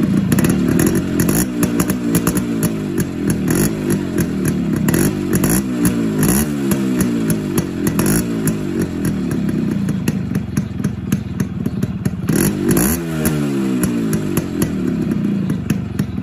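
Yamaha RX100's two-stroke single-cylinder engine revved in repeated throttle blips, its pitch rising and falling over and over. The exhaust runs through a silencer packed with glass wool.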